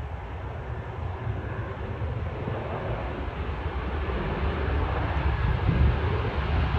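Boeing 737-800 on final approach, the rushing rumble of its CFM56-7B jet engines growing steadily louder as it comes closer.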